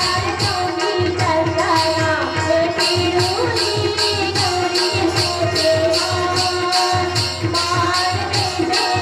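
Chhattisgarhi Gauri Gaura folk music: a double-headed barrel drum beating with rapid, even metallic jingle strokes about four a second, over a held melody.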